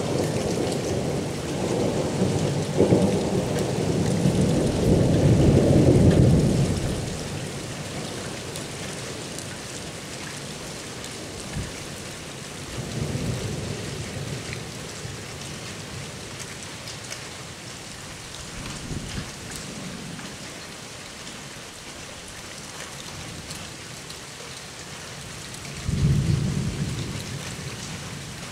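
Thunder rumbling over steady rain in a squall-line thunderstorm. A long roll of thunder builds over the first six seconds, two weaker rumbles follow, and a sudden loud clap near the end rolls away.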